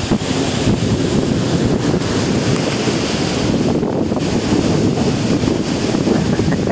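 Wind gusting across the phone's microphone during a thunderstorm: a loud, steady rushing buffet with no pause.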